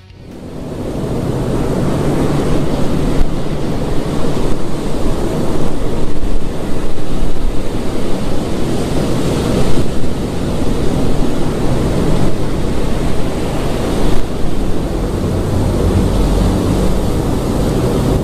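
Loud, steady rushing wind-like noise with a low rumble underneath. It fades in over the first second or two.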